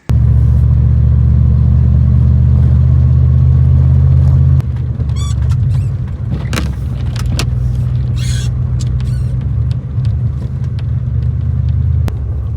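Gas three-quarter-ton Ram pickup running: a loud, steady low drone that drops and turns rougher about four and a half seconds in, with a few sharp clicks and short squeaks over it.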